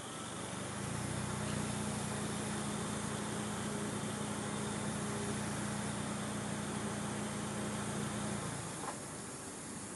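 A motor vehicle engine running steadily, a low hum at an even pitch that comes in about half a second in and stops well before the end, over a steady background hiss.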